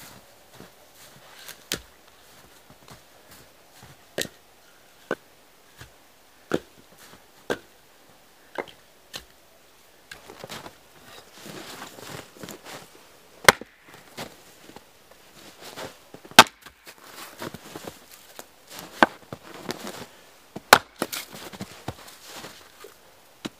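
Axe splitting firewood rounds on a chopping block: four loud, sharp wooden strikes a few seconds apart in the second half. Before them comes a run of lighter wooden knocks as log rounds are dropped, with rustling between the strikes.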